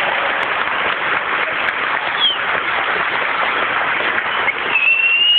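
Football crowd in a stadium: a dense, steady din of many voices. Near the end a shrill whistle sounds for about half a second.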